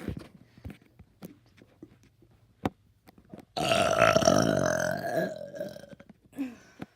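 A big, loud burp from a child, starting about halfway and lasting about two seconds, after a few faint clicks.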